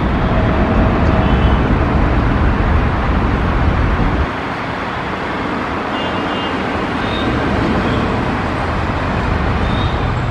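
Jet engine noise of a Boeing 787-10 climbing out after takeoff. The deep rumble drops away suddenly about four seconds in, leaving a thinner, steady noise with a few short high chirps.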